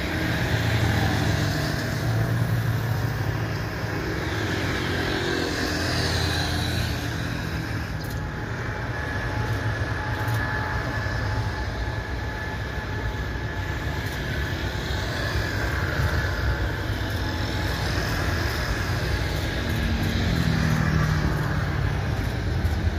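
Boeing 777-300ER's twin GE90-115B turbofan engines running at takeoff thrust as the airliner accelerates down the runway: a deep, steady rumble with a thin whine over it in the middle seconds.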